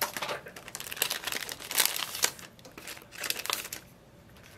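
Plastic packaging of a clear stamp set crinkling as it is opened and the clear stamp sheet is pulled out. Irregular rustles with the sharpest crackles about two seconds in, dying away near the end.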